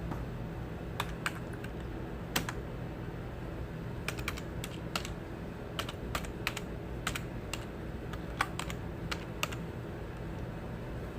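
Irregular keystrokes on a computer keyboard, a few taps at a time with short pauses between, over a steady low hum.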